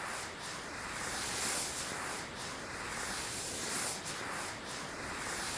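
Sparkler fizzing: a steady hiss of burning sparks with small surges.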